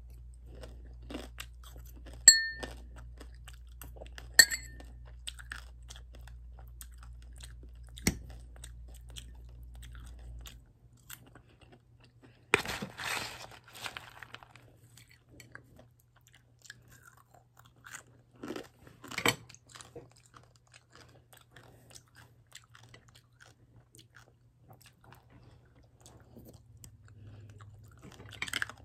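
Close-up mouth sounds of someone eating rice and a vegetable dish: chewing and crunching, louder around the middle. There are two sharp clinks with a short ring, like a fork on a dish, early on. A low background hum cuts off about ten seconds in.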